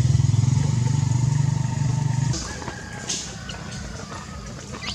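Motorcycle engine running steadily, a low hum that cuts off suddenly a little over two seconds in. Quieter outdoor background with a few faint clicks follows.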